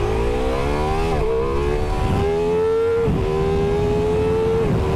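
The Ducati Multistrada V4 Pikes Peak's V4 Granturismo engine is accelerating at full throttle. Its pitch climbs through the revs and drops sharply at three quick upshifts: about a second in, about three seconds in and near the end.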